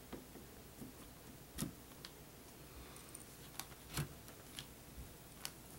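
Faint, scattered light clicks and taps, about half a dozen spread over several seconds, from a DDR3 memory stick being handled and lined up against a motherboard's plastic memory slot.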